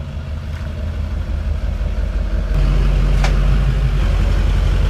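Lifted Chevrolet Silverado HD's Duramax V8 turbo-diesel rumbling at low speed as it pulls up close, getting louder about halfway through. A brief high chirp a little past three seconds in.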